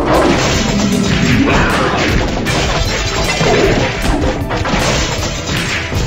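Cartoon brawl sound effects: a dense, continuous run of crashes, whacks and thuds, with music underneath.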